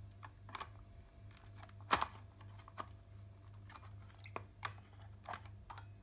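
Stainless-steel lid of a cat water fountain being pressed and seated onto its plastic base by hand: a string of light, irregular clicks and knocks, the loudest about two seconds in.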